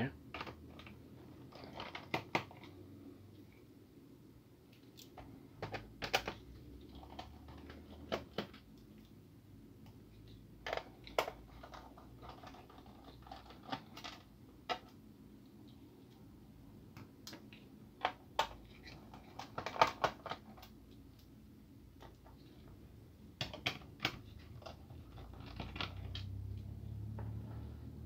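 Small screwdriver working the screws of a laptop's plastic bottom case as they are taken out: scattered, irregular small clicks and taps, some in quick clusters. A low rumble comes up near the end.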